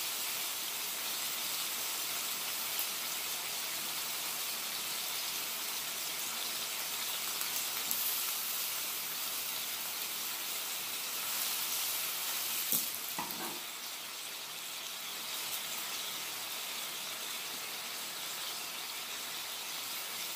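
Ribeye steak and zucchini searing on a hot flat-top griddle: a steady sizzle throughout. A few light clicks of metal tongs come as the zucchini is turned to sear it on all sides.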